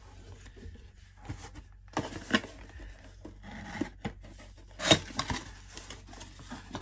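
Cardboard box being handled and its tucked top flap pulled open: rubbing and scraping of cardboard, with a few sharp clicks and a louder snap about five seconds in.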